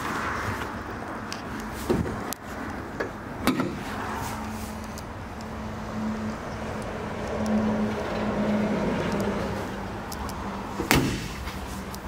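Bonnet of a Mercedes-Benz GLA200 being opened and shut: a few clicks and knocks in the first few seconds as it is raised, then one loud bang about eleven seconds in as it is slammed closed.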